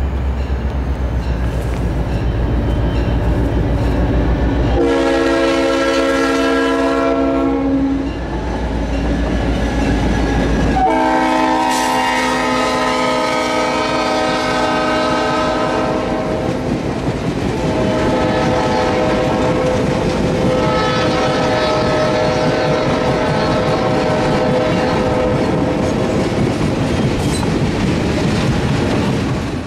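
A diesel passenger train passing close by, its wheels clattering on the rail joints under a low rumble, while the train's horn sounds three long blasts.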